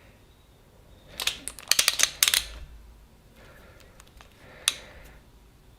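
A quick run of sharp metallic clicks about a second in, then a few faint ticks and one more sharp click near the end. This is a wrench tightening the nuts on a Porsche 911 engine's upper valve covers.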